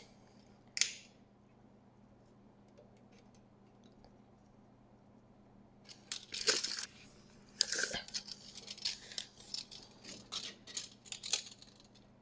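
Brief rustling and scraping handling noises in scattered spells from about six to eleven seconds in, after a single sharp click about a second in, over a faint steady low hum.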